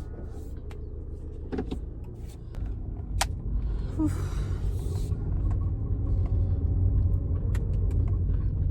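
Car engine and road rumble heard from inside the cabin, growing louder from about two and a half seconds in, with scattered small clicks and a brief hiss about four seconds in.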